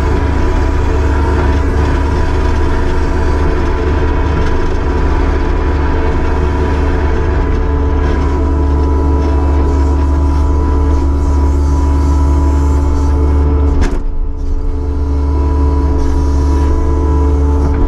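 Kubota SVL75-2 skid steer's diesel engine running steadily under load, a deep drone with a steady whine above it. About fourteen seconds in there is a sharp click and a brief dip in the sound.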